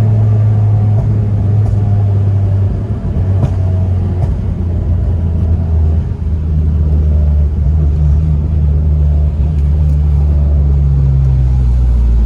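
Honda Civic Si's 2.4-litre K24 four-cylinder engine and exhaust droning under way. The engine note changes after short dips in level about three and six seconds in.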